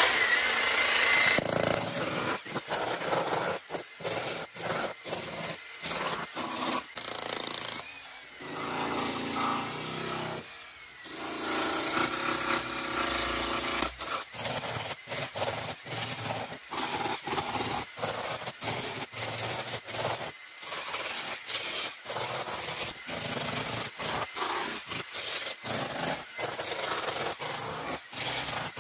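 Corded electric demolition hammer with a chisel bit breaking up a concrete slab. It runs in short spells, stopping briefly every second or two as the chisel is lifted and set again.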